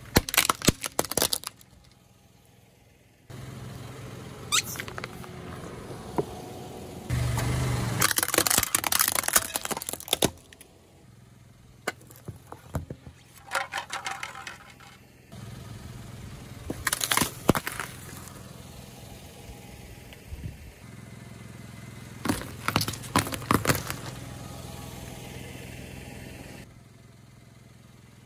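A car tyre rolling over plastic phone cases and other small objects, crushing them in several bursts of cracking and crunching, with the car's engine running low underneath.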